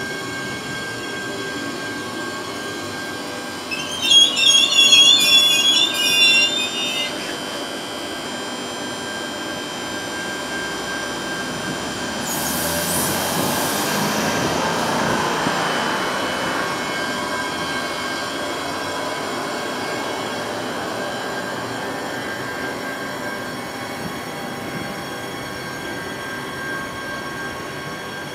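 Adelaide Metro 4000 series electric train running past at low speed, with a steady whine from its electric drive. A loud, wavering, high-pitched wheel squeal sounds from about 4 to 7 seconds in, and the rolling noise swells a little around the middle.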